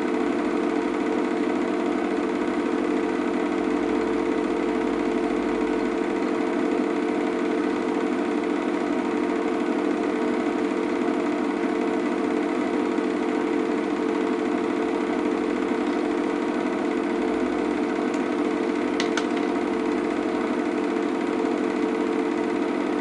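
Steady mechanical drone of a small machine running, even in pitch and level throughout, with a couple of faint ticks near the end.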